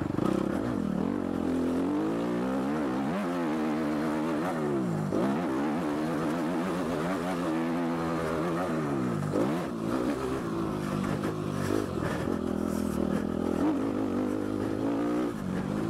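2012 Suzuki RM-Z250's four-stroke single-cylinder engine being ridden hard on a dirt motocross track, its pitch climbing and dropping back again and again as the rider accelerates, shifts and rolls off.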